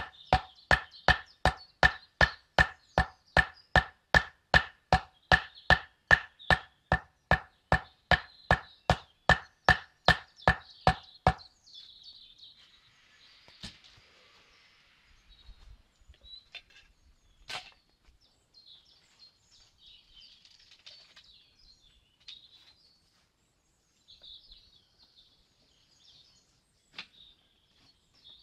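Wooden stakes being beaten into the ground: a fast, even run of sharp wooden knocks with a slight ring, about three a second, that stops about 11 seconds in. Faint birdsong follows.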